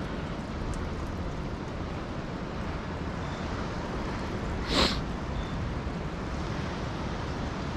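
Steady wind rumble on the microphone, with one short scraping noise about five seconds in.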